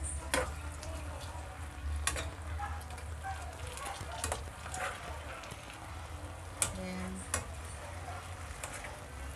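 Metal spatula stirring mushrooms sautéing in a pan, with a light sizzle and sharp clinks and scrapes of the utensil against the pan every second or two. A steady low hum runs underneath.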